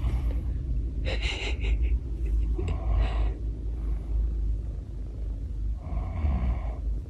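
A steady low rumble, with several short breathy gasps over it: about a second in, near three seconds and near six seconds.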